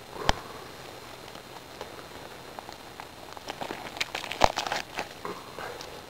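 Hands gutting a plucked lesser Canada goose, pulling the entrails out of the body cavity: a scatter of short irregular clicks and rustles, with a sharp click just after the start and a busier stretch around four to five seconds in.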